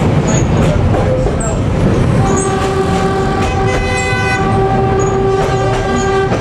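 Train running with a steady rumble; about two seconds in the locomotive's horn sounds, one long chord-like blast held for about four seconds that cuts off sharply near the end.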